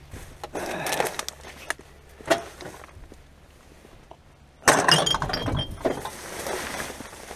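Rubbish clattering and knocking in a dumpster as it is shifted about, with a sharp knock a couple of seconds in and a loud crash at about five seconds, followed by a second of rattling.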